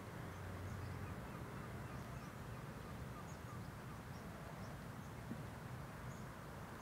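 Faint shoreline ambience: a steady low rumble of wind and sea, with scattered short, high bird chirps. The tail of the background music fades out about a second in.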